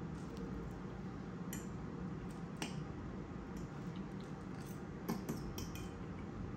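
Metal fork clinking and scraping against a white ceramic bowl while eating: several light, short clicks, irregularly spaced, over a steady low background hum.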